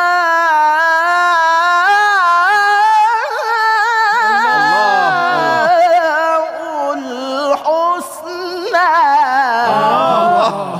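A male Quran reciter in tilawah style holds one long, ornamented note in a high register with vibrato. About four seconds in and again near the end, other men's voices call out in appreciation beneath it.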